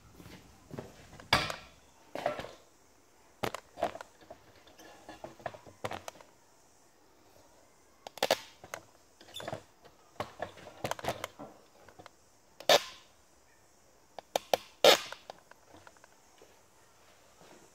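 Irregular knocks, clicks and clatters of handling noise as painting gear is moved about, the loudest about a second and a half in and twice near the end.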